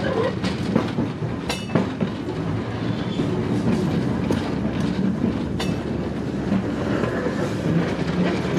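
Tram running along its track: a steady rumble of wheels on rail with two sharp clacks, about a second and a half in and again about five and a half seconds in.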